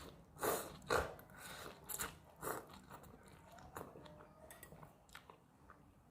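A person eating instant noodle soup with meatballs close to the microphone: a few loud, short mouth noises in the first three seconds, then quieter chewing with small wet clicks.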